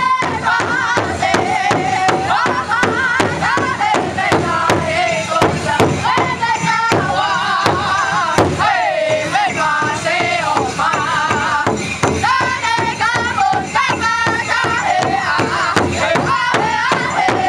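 Powwow drum group singing: several voices sing together in wavering, high lines over a large powwow drum that the singers strike in unison with padded sticks, in a steady beat.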